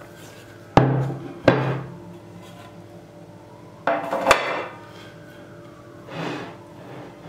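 Inverted metal tart pan knocked against the plate and table: two sharp knocks about a second in, then a quick clatter of knocks about four seconds in as the pan is lifted off the sponge cake and set down.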